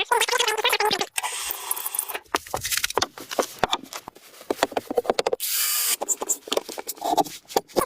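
Woodworking tool sounds: a run of sharp taps and knocks, a pitched power-tool whine during the first second or so, and a short burst of hiss about five and a half seconds in.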